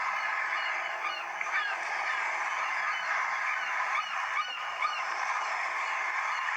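Samsung Galaxy S3 nature-sound ringtone: a recording of a large flock of birds calling all at once, a dense steady chorus of many overlapping short calls.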